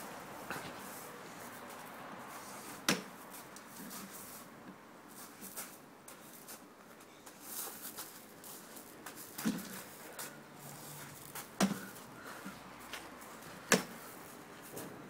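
A plastic swingball racket swung at a tethered ball and pole, giving a few sharp knocks several seconds apart, with softer taps between them.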